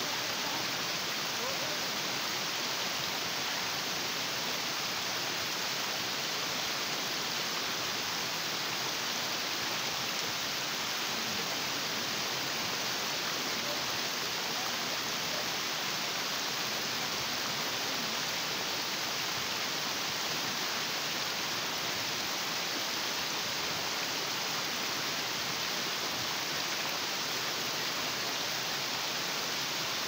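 Shallow stream cascading over sloping rock slabs: a steady rushing and splashing of water.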